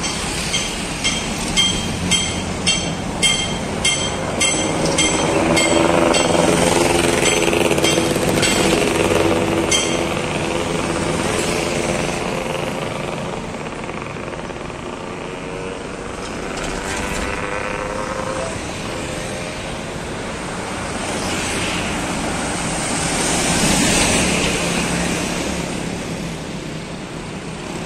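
Road traffic passing on a town street, with engine notes of buses, cars and motorbikes rising and falling. In the first few seconds there is a run of about nine short, evenly spaced beeps, about two a second.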